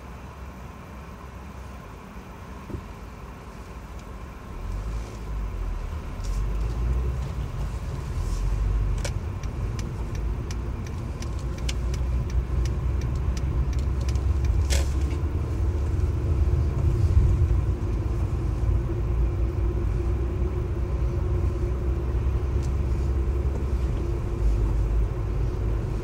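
Low rumble of a car's engine and road noise heard from inside the moving car, growing louder about five seconds in and then holding steady, with a few light clicks and one sharper click near the middle.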